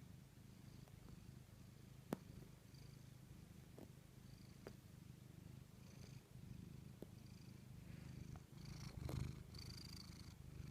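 Tabby cat purring faintly and steadily, close up, with a few small clicks, the sharpest about two seconds in.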